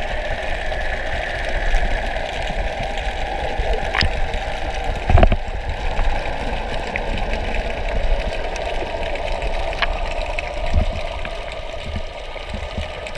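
Underwater sound picked up by a camera below the surface: a steady muffled hum with a machine-like drone. A few sharp clicks break through it, with a louder knock about five seconds in.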